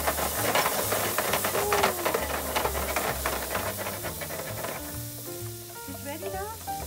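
Squid stir-fry sizzling and hissing hard in a flaming wok over a gas burner, with sharp clacks and scrapes of chopsticks and utensils against the pan. The sizzle dies down about five seconds in, and steady background music notes come forward.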